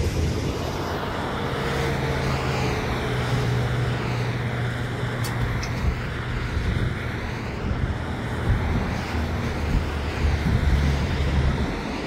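A passing vehicle's engine: a steady low drone that sets in about a second in and holds, with a slowly sweeping whoosh in the hiss above it.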